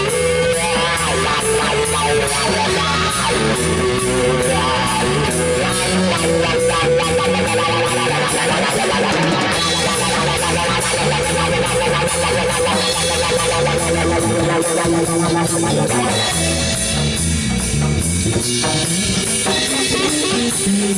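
Live rock band playing: electric guitar, electric bass guitar and a Pearl drum kit.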